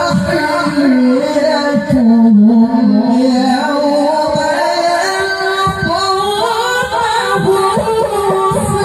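A male qari reciting the Qur'an in melodic tilawah style into a handheld microphone, one long unbroken phrase of held, ornamented notes. The pitch dips about two seconds in and climbs higher in the second half.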